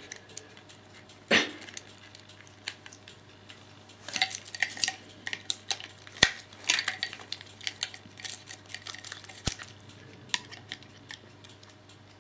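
Hard plastic plug adapter and charger power supply being handled and pushed together: scattered clicks and small rattles, with a sharper knock about a second in and a few single sharp clicks later.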